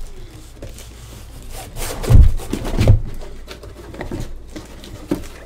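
Foil card packs being pulled out of a cardboard hobby box: handling knocks and rustles, with two louder ones about two and three seconds in and a few light clicks near the end.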